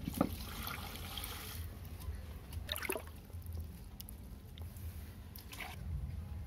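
Live catfish thrashing in shallow water in a round pot, splashing and sloshing. Sharper splashes come near the start, about three seconds in and again about five and a half seconds in, over a low steady rumble.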